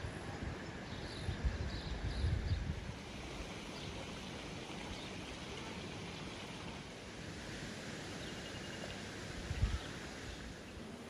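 Outdoor ambience: a steady rushing background with low wind buffets on the microphone in the first few seconds and again near the end.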